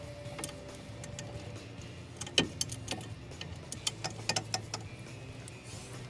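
Scattered sharp metallic clinks and taps of tools and parts on the front wheel hub and drive shaft as they are refitted by hand, with a cluster of quick taps in the second half.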